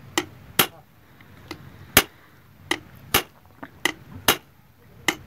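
Hammer striking metal: about ten sharp, ringing taps at irregular intervals, tapping the new fuel cam and its locking pin tight on the camshaft of a Lister diesel engine.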